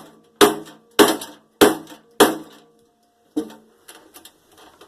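Hammer blows on a microwave's metal parts to knock a cut wire loose: four hard strikes about every half second, each leaving a short ring, then a lighter one about three and a half seconds in and a few small clicks.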